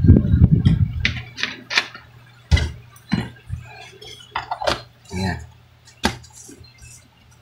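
Bleach pouring from a plastic bottle into a jar, stopping about a second in. Then a run of separate clicks and knocks as the electrode cap is put into the jar and screwed on.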